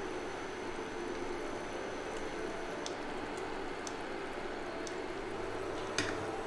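Vegetable broth simmering in a wok while a ladle scoops it out and pours it into paper instant-noodle cups, over a steady background hum. A few faint clicks come in the middle, and a sharper clink about six seconds in.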